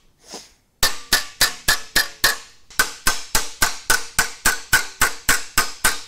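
Hammer striking a sheet-metal patch panel against a body dolly clamped in a vise: a steady run of sharp metallic blows, about four a second, each with a brief ring. This is hammer-on-dolly shaping, squeezing and stretching the metal to put a curve into the panel.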